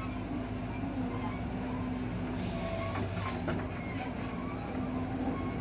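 Tracked JCB excavator's diesel engine running steadily while the hydraulics work the bucket through its curl, with a few light knocks near the middle.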